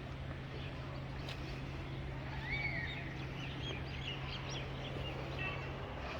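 Birds chirping in short calls from about two seconds in, over a steady outdoor background with a low hum.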